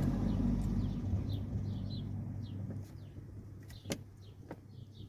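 A vehicle's low engine hum fading away, with short high chirps repeating throughout and two sharp clicks about four seconds in as the thermostat is pushed into its tight-fitting housing.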